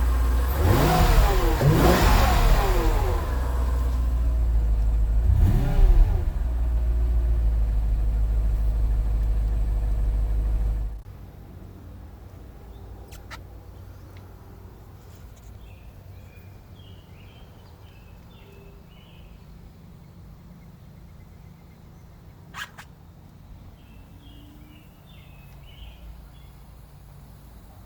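2003 Mercedes CL55 AMG's supercharged 5.4-litre V8 (M113K) running just after a start, blipped up and back down twice in the first six seconds, then idling. The engine sound cuts off abruptly about eleven seconds in.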